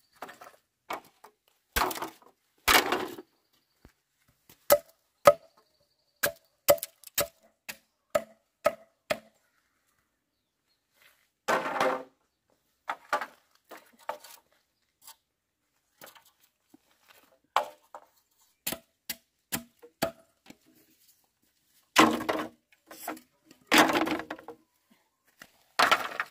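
Machete chopping green bamboo poles: sharp knocks in runs of about two a second, mixed with several longer clatters of bamboo poles knocking together.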